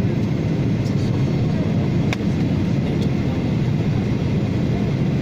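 Airliner cabin noise during the descent to land: the steady drone of the engines and rushing air, heard from a window seat, deep and even throughout.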